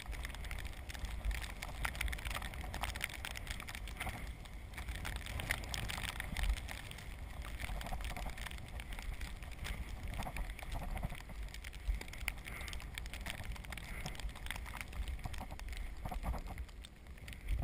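Recumbent trike rolling through snow: tyres crunching and hissing through the snow with many small clicks and knocks from the frame and drivetrain, over a steady low rumble of wind on the camera microphone.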